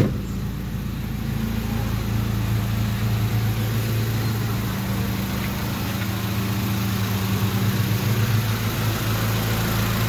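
Mitsubishi 4G92 inline-four engine idling steadily while it warms up after a cold start, the idle still high at about 900 rpm. A single sharp knock at the very start.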